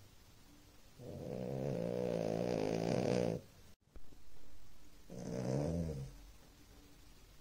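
French bulldog puppy snoring in her sleep: two snores, a long one of over two seconds and a shorter one about a second and a half after it.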